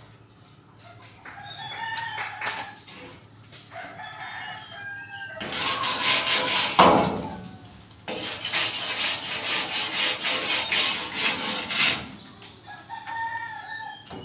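Chickens clucking and a rooster crowing, with short pitched calls near the start and again near the end. In the middle, several seconds of loud, rough noise rise above the birds, with a short break in between.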